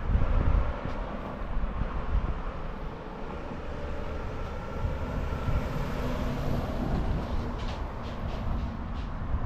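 A steady low rumble of a passing vehicle, with a faint whine in it and a few light clicks near the end.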